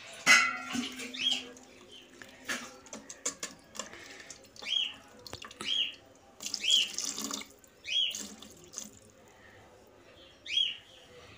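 A steel spoon stirring a watery vegetable biryani mixture in an electric rice cooker's metal pot: liquid sloshing, with irregular clinks of the spoon against the pot and a sharp knock just after the start. About six short, high chirps recur through it.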